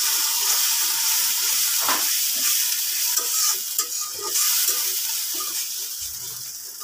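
Spice paste sizzling loudly in a wok just after a splash of water has been added, while a spatula stirs and scrapes it round the pan to cook the masala down. The sizzle slowly dies away over the seconds.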